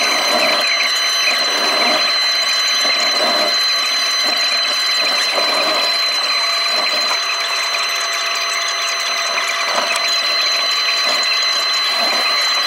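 Takeuchi TB290 compact excavator running as it digs, heard from the operator's seat: a steady high hydraulic whine over the diesel engine, with the lower running sound swelling and easing as the arm and bucket work.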